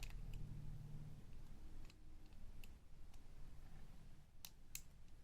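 Lock pick working inside a Master Lock deadbolt during single pin picking: scattered faint clicks and ticks as pins are lifted and set one at a time, with two sharper clicks near the end.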